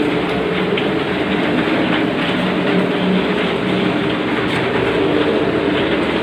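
Multi-spindle CNC wood router running: a loud, steady machine drone with a constant hum, unbroken throughout.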